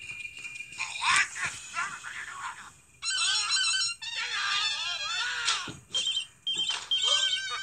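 Cartoon sound effects from a children's Bible story app: high, squeaky gibberish voices of angry townspeople shouting and grumbling several times, over light music.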